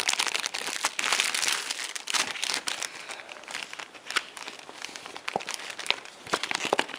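Clear plastic packaging crinkling and rustling as hands open the bag holding a monitor's manual, with many small crackles. It is busiest in the first few seconds, then thins out to scattered crackles.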